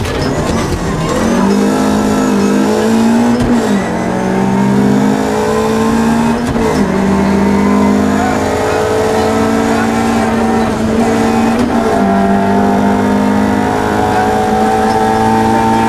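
Opel Ascona rally car's engine heard from inside the cabin, accelerating hard through the gears: the pitch climbs and drops at upshifts about four, seven and twelve seconds in.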